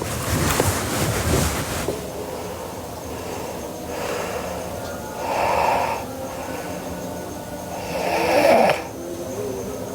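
A sleeping girl snoring: a noisy breathy rush for the first two seconds, then two rough snores about five and eight seconds in, each lasting under a second, roughly three seconds apart.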